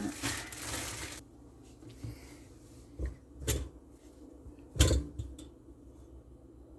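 Plastic bread bag crinkling for about a second, then a few short knocks and taps, the loudest about five seconds in.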